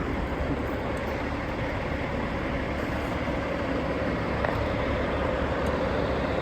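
Truck driving along, with a steady engine and road rumble.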